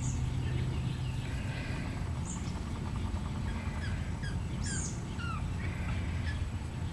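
Birds chirping in short, scattered calls outdoors over a low steady hum.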